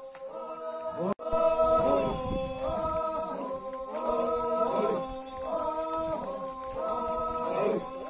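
A group of voices singing in chorus: held chords that change every second or so in a repeating phrase, with a brief break about a second in.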